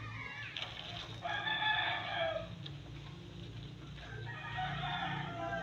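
Rooster crowing twice: one crow about a second in that falls away at its end, and a second starting past four seconds.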